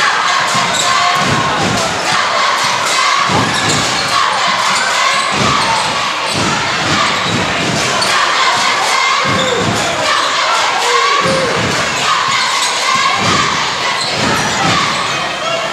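Basketball dribbled on a hardwood gym court, with repeated bounces, under the steady chatter and shouts of a crowd in the gymnasium.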